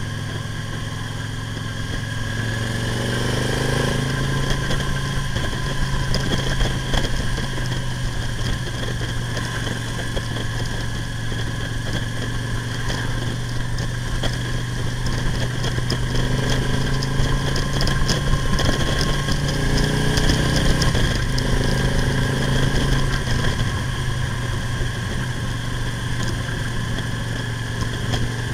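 Victory V92C cruiser's 92-cubic-inch V-twin engine running while riding on the road, rising in pitch as it accelerates a few seconds in and again past the middle, with a steady rush of wind.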